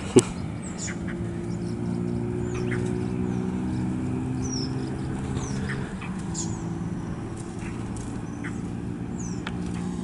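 Short, sharp bird calls, one every second or so, from a mixed flock of birds mobbing an amphisbaena. These are the alarm calls of birds afraid of the snake. Under them runs a low steady hum.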